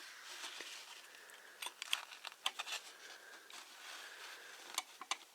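Small sharp metal clicks and scraping, clustered about two seconds in and again near the end, as a flipped, doubled-up connecting-rod bearing shell is worked loose from the number one rod of a seized engine.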